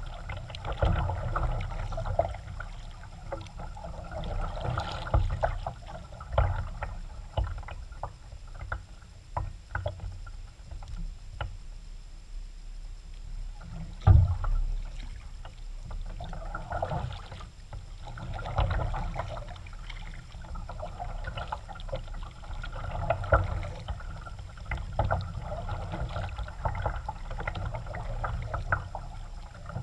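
Kayak paddling: the paddle blades dip and splash in recurring patches of water noise, with scattered knocks and clicks, the loudest about fourteen seconds in, over a low rumble.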